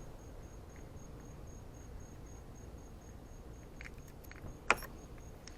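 Faint, evenly pulsing high chirp under a quiet stretch, with a few light ticks and one sharp metallic click near the end as screws and small parts are worked loose from a hood latch.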